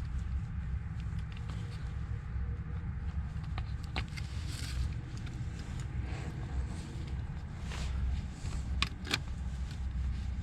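Small clicks and knocks of blower-motor parts being handled and fitted back together, the sharpest about four seconds in and two close together near the end, over a steady low rumble.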